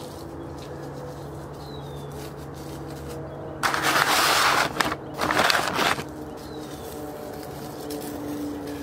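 Plastic bag crinkling close to the microphone as it is handled and set down, in two loud rustles about four seconds in, the first a little over a second long and the second shorter, over a steady low hum.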